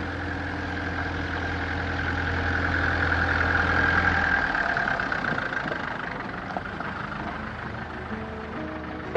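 Minibus engine running as the van drives past, growing louder to a peak about four seconds in and then fading away.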